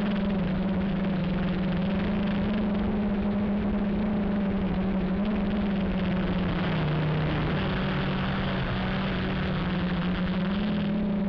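Q450 quadcopter's electric motors and propellers humming steadily in flight, over a constant rush of air. The pitch drops for about two seconds just past the middle, then comes back up.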